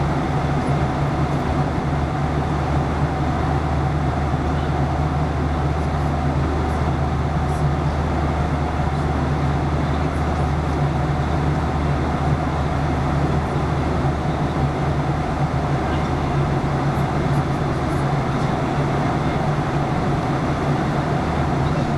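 Steady cabin noise inside a Boeing 737-800 in flight: an unbroken drone of airflow and jet engines with a constant low hum underneath.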